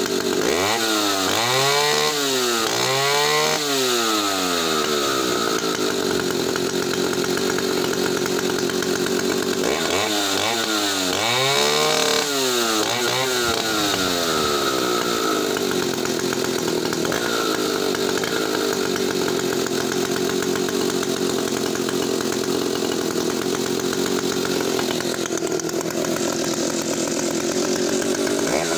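Solo 60135 vintage 92cc two-stroke chainsaw engine running, with its throttle blipped several times, the pitch rising and falling in quick arcs. This happens a few times near the start, again about ten seconds in, and once more at the very end; in between it holds a steady speed.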